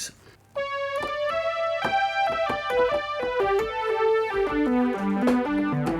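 Korg Modwave synthesizer playing a lead patch modelled on the ARP Quadra's lead section: a melody of single notes that starts about half a second in, climbs, then steps down lower toward the end.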